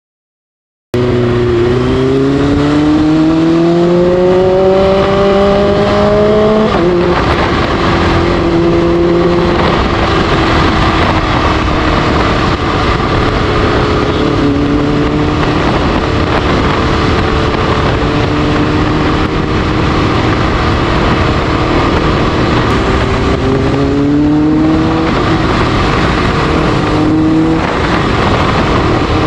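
Kawasaki H2's supercharged inline-four with an SC Project exhaust, heard under way on the move. After about a second of silence the engine note climbs as the bike accelerates, drops at a gear change about seven seconds in, and holds fairly steady for a long stretch. It climbs again near the end with another shift, over a constant rush of wind and road noise.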